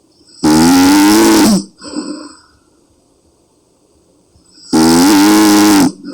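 A woman snoring loudly in deep sleep: two long, pitched snores about four seconds apart, each followed by a shorter, softer breath.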